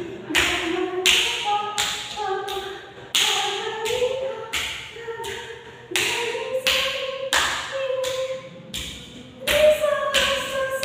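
Accompaniment to an Odissi Pallavi dance: a smooth, gliding melody over sharp percussive strikes with a ringing top, about two a second.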